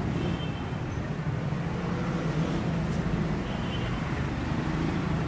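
Steady city street traffic noise with a low engine hum.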